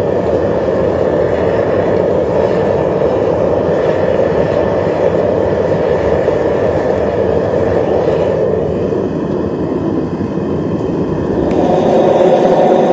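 Propane burner firing into a metal-melting furnace, a steady loud roar. Near the end the sound shifts, with less rumble and a somewhat higher-pitched rush.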